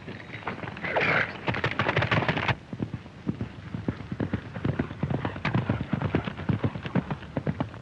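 Galloping horses' hooves on an old film soundtrack: rapid, irregular hoofbeats. A denser, louder run cuts off suddenly about two and a half seconds in, and lighter galloping carries on after it.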